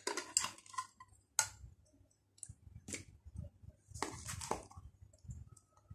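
Scattered light clicks and rustles of hands handling spice containers, roughly a second apart, with a small cluster about four seconds in.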